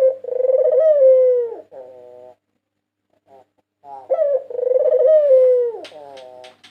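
White Barbary dove (puter putih) cooing: two long coos about four seconds apart, each sliding down in pitch and trailing into a softer, lower coo. A few short clicks come near the end.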